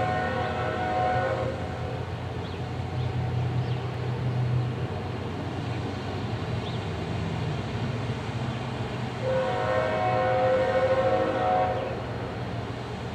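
Approaching freight diesel locomotive, a GE ES44AH, sounding its horn: one blast cuts off about a second and a half in, and a second blast of about three seconds sounds near the end. The locomotive's diesel engine runs steadily underneath.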